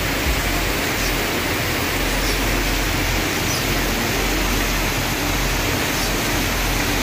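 River water rushing steadily over rocks and a concrete weir.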